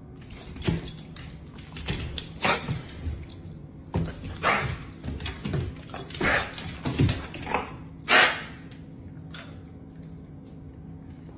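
A dog giving a string of short barks and whimpers, the loudest about eight seconds in, after which it goes quiet.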